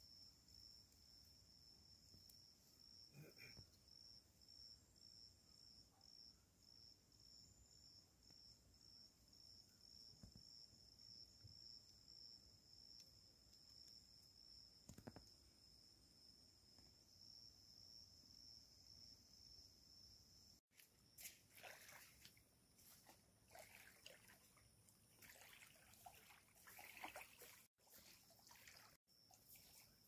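Faint high-pitched insect chirping in a steady pulsing rhythm. After a cut about two-thirds of the way through it gives way to irregular rustles and crackles.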